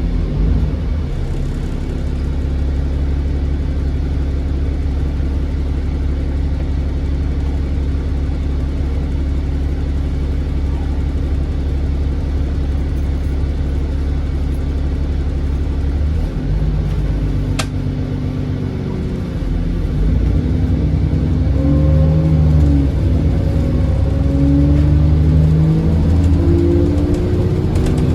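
Turbocharged diesel engine of a bus heard from on board. It holds a steady low drone for about the first half, then pulls away and accelerates hard, its pitch climbing and dropping through the gears, with a faint turbo whistle above the engine note.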